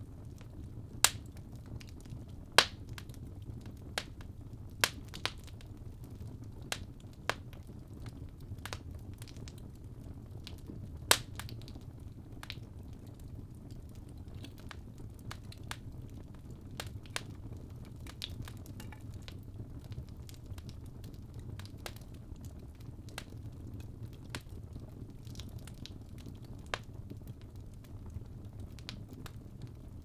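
Fireplace fire crackling: sharp, irregular pops and snaps over a low, steady rumble of the flames. The pops come thickest in the first half, the loudest a second or two in and again about eleven seconds in.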